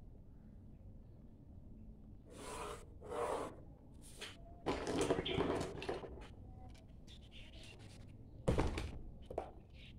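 Pencil strokes along a plastic set square and the set square sliding over drawing paper: several short scraping rubs, the loudest and sharpest near the end.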